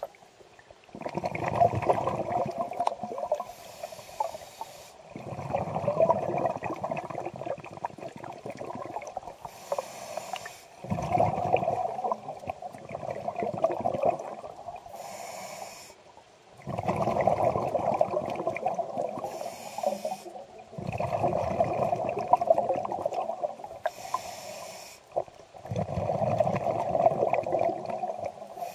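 Scuba diver breathing through a regulator underwater: a short hiss on each inhale, then a longer bubbling rumble of exhaled air, repeating about every five seconds.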